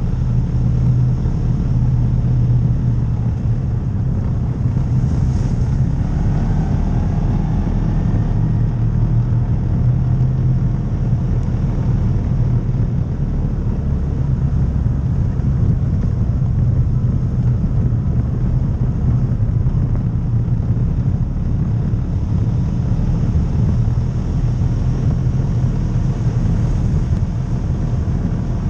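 Side-by-side UTV engine running steadily at trail speed, a low even drone, with tyre and road noise from the gravel trail.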